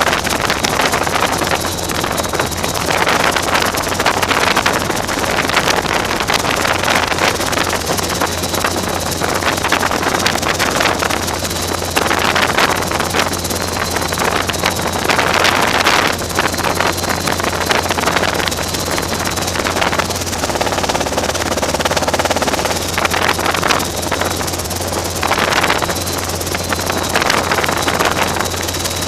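Robinson R22 helicopter heard from inside the cabin: steady engine and rotor drone with a thin high whine, and wind buffeting the microphone in irregular gusts.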